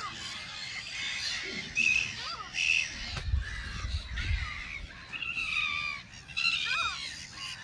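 A mixed flock of gulls calling: many harsh, overlapping calls, some short and falling in pitch, others held longer. A low rumble comes through about halfway.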